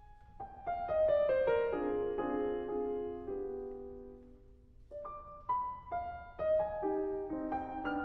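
Background music: solo piano playing a descending run of notes, a held chord that fades away, then a new phrase starting about five seconds in.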